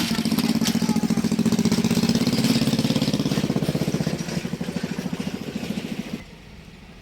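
Ruston Hornsby heavy oil engine running with a fast, even beat. It grows weaker after about four seconds and cuts off abruptly about six seconds in.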